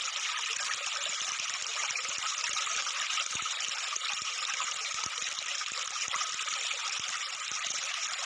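Water splashing and sloshing as a person wades through shallow river water: a steady wash of splashing noise with many small crackles throughout.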